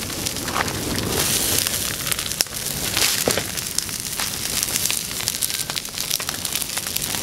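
Open wood fire crackling and hissing, with irregular small pops, while animal hides are singed in the flames to burn off their hair.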